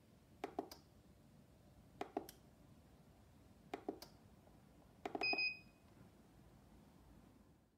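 Push button on a homemade UV lamp timer clicking: three quick click pairs about a second and a half apart, then a fast double press about five seconds in, answered by one short electronic beep as the timer mode is exited and the UV light switches off.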